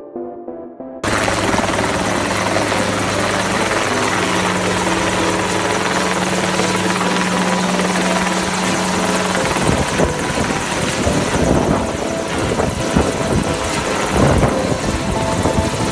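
Light helicopter running close by: loud, steady rotor and engine noise that starts abruptly about a second in. From about halfway the steady hum gives way to a rougher, gusty noise.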